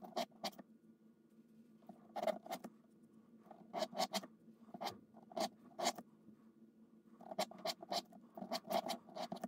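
Sandpaper rasping in short, quick strokes over a thin strip of leather, rounding off its square-cut edges. The strokes come in bursts of two to four with short pauses between them.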